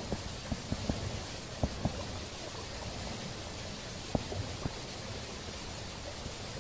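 A steady hiss with a few scattered faint knocks and clicks as a gloved hand handles a spinning fishing rod and reel, the clearest knocks about one and a half to two seconds in and again about four seconds in.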